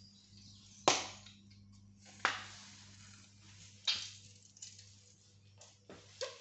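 Sharp clicks or knocks from kitchen handling: three loud ones about a second and a half apart, then a few fainter ones near the end, over a low steady hum.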